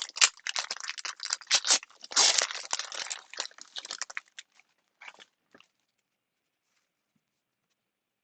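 Crinkling and rustling of packaging, in quick crackly bursts with a denser patch of crunching around two to three seconds in, dying away after about four and a half seconds.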